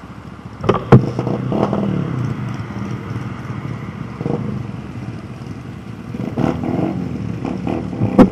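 Small 125cc-class motorcycle engines running close by, their revs rising and falling, with two sharp knocks, one about a second in and one near the end.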